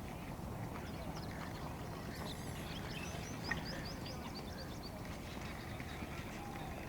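Steady low rumble of outdoor background noise, with a quick run of faint, short high chirps about halfway through.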